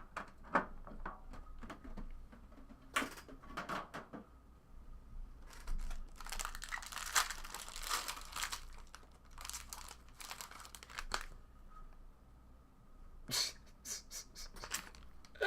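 Trading card packaging crinkling and tearing as a pack is opened. Scattered light clicks of cards being handled come first and again near the end, with a longer stretch of crinkling in the middle.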